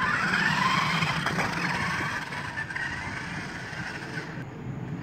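FastLane RC stunt car driving on pavement: its small electric motors and gears whine, rising and falling in pitch with the throttle, over the rough rolling of its wheels. It fades as the car drives away.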